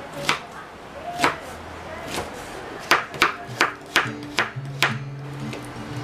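Kitchen knife chopping leafy greens on a wooden cutting board, each cut ending in a sharp knock on the board. The cuts come about a second apart at first, then in a quicker run of about three a second from about three seconds in. Soft background music comes in about halfway through.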